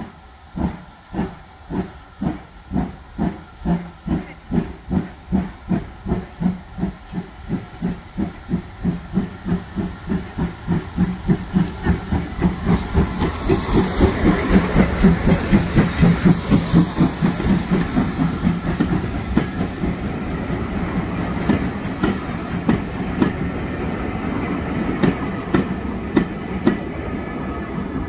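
GWR 1500 class pannier tank steam locomotive No. 1501 working a train past at close range: evenly spaced exhaust beats that quicken and grow louder as it approaches, loudest as the engine passes about halfway through, with steam hiss. After it, the coaches rumble by with clicks from wheels over rail joints.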